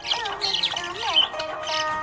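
Budgies chirping and squawking rapidly over background music with a melodic line.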